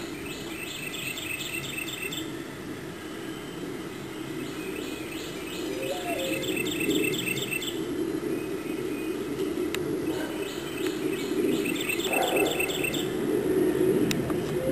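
A steady low rumble like a jet airliner passing high overhead, of unknown source and growing slightly louder partway through. Over it a small songbird repeatedly gives rapid high chirping trills, each lasting about two seconds.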